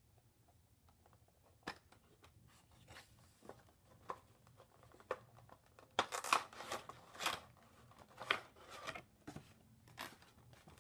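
Cardboard Funko Pop box and its clear plastic insert being handled and opened: a run of clicks, crackles and rustles of card and plastic, busiest and loudest from about six seconds in.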